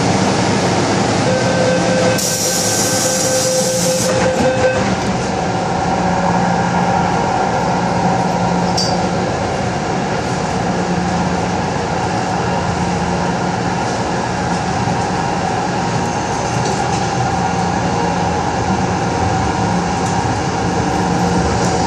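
MTR M-Train electric multiple unit standing at a platform, then pulling away and gathering speed. A steady tone sounds for about three seconds near the start, with a burst of hiss in the middle of it, and the train's running noise from its motors and wheels carries on under a steady hum.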